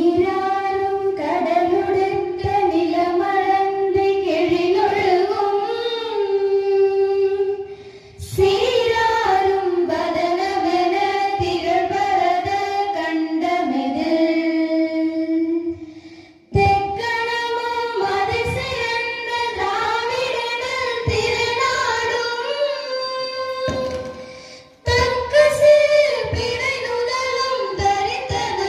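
Young women's voices singing a song in unison, in long held phrases that break off about every eight seconds.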